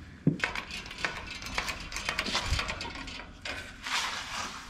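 Metal tools and engine parts clinking and scraping as they are handled, with a dull thump about halfway through.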